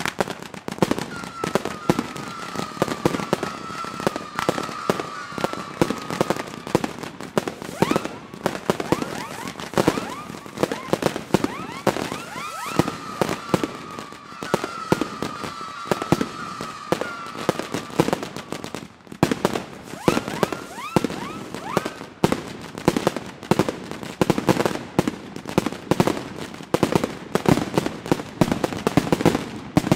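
Daytime fireworks battery firing continuously: rapid cracks and bangs of shots launching and bursting, with short rising whistles. A long warbling tone is heard twice for several seconds.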